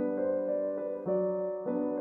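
Background music played on a piano-sounding keyboard, a new note or chord about every half second.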